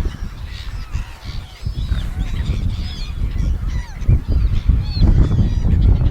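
A flock of seagulls calling over and over, many short arching cries overlapping. Underneath is a heavy, gusting low rumble that grows louder in the second half.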